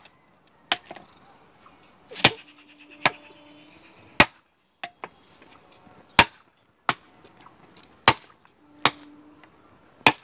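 Long-handled hammer striking a steel elastic rail clip (Pandrol-type fastening) on a concrete-sleeper railway track, to drive the clip out. About nine heavy metallic blows land roughly a second apart, with a couple of lighter taps among them, and several blows leave a brief ringing tone.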